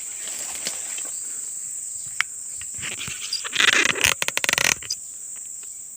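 Crickets and other night insects chirring in a steady high-pitched drone. A little past the middle, a loud burst of rustling with rapid clicks lasts about a second, and there is one sharp click shortly before it.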